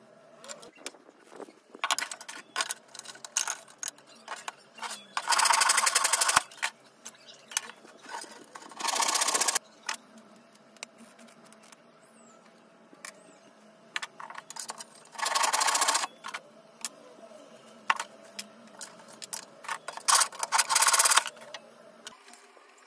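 An aerosol super-glue activator spray hissing in four bursts of about a second each. Between them come small clicks and taps of wooden blocks and metal nuts being handled.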